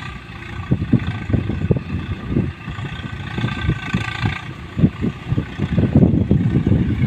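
A farm tractor's diesel engine runs at a distance as it hauls a loaded trolley through deep mud, heard under gusty low rumbling that comes and goes in uneven surges.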